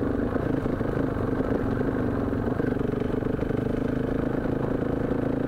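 KTM 500 EXC-F single-cylinder four-stroke engine running on the move, its pitch wavering slightly, while the bike was fuel-starved by a dying fuel pump.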